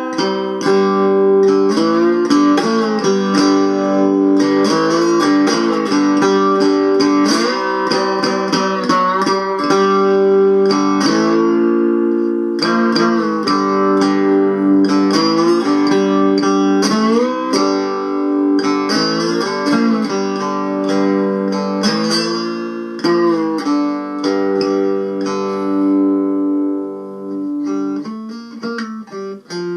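Homemade cigar-box-style guitar with a tin resonator plate, amplified through a piezo pickup, playing an instrumental tune. Plucked notes slide up and down in pitch over repeated low drone notes, thinning out near the end.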